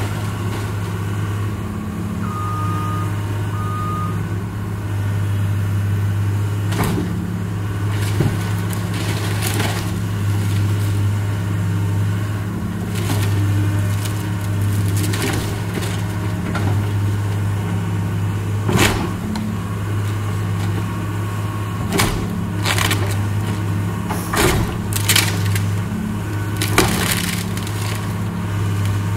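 Tracked excavator's diesel engine running steadily under load while it tears into a wooden barn, with repeated sharp cracks and crashes of breaking timber at irregular moments.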